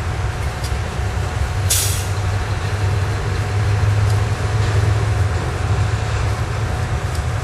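Diesel locomotive, a GE U23B with a V12 engine, running with a steady low drone as it moves a string of hopper cars. A short burst of air hiss from the brakes comes about two seconds in, with a few faint clicks from the rolling cars.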